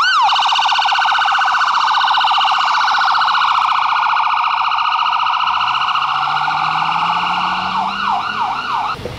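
Ambulance siren passing close by: a fast warble that dips slightly in pitch as it goes past, then changes to a slower up-and-down yelp near the end before cutting off. The ambulance's engine note rises underneath in the last few seconds as it pulls away.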